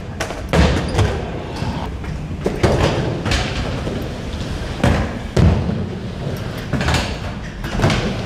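Skateboards rolling on indoor ramps, with a string of sharp clacks and thuds at irregular intervals as the boards pop, hit the ramp edges and land.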